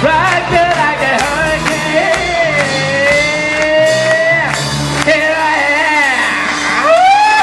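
Live hard rock band playing loudly, with drums keeping the beat and a long held, wavering high note in the middle, then sliding notes near the end.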